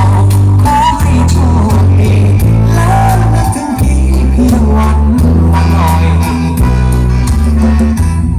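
Loud music with a heavy bass line in long held notes that change about once a second, under a gliding melody line.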